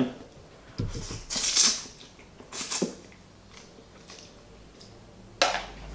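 A person eating fried instant noodles with chopsticks: several short slurping and chewing sounds, the loudest about a second and a half in.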